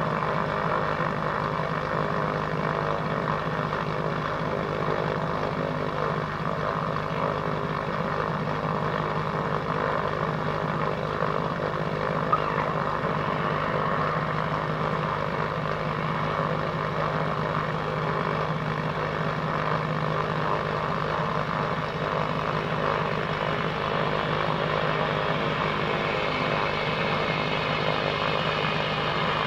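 Pilatus PC-6 Turbo Porter's PT6A turboprop engine and propeller running at low landing power, a steady hum with a droning low tone through the approach, touchdown and rollout. A single short click about twelve seconds in.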